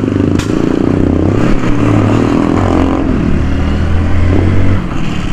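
A 100 cc motorcycle's single-cylinder engine running while the bike is ridden slowly, its note dropping a little about three seconds in. There is one sharp pop about half a second in.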